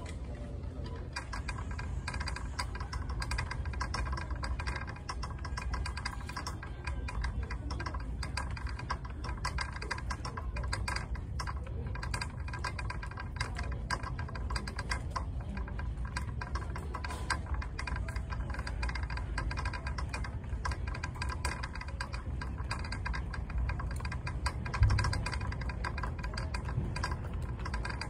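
Red plastic-and-metal shopping cart being pushed over a hard store floor, its wheels and frame rattling in a fast, continuous "clickety clackety" clatter. A single thump near the end.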